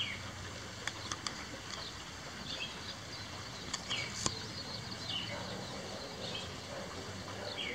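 Small bird calling outdoors: short falling chirps repeated about once every second and a quarter, over a steady low background hum. A few sharp clicks come about a second in and around four seconds in.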